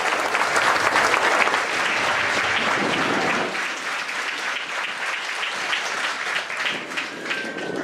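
Crowd applauding, loud at first, then thinning out after about three and a half seconds into scattered, fading claps.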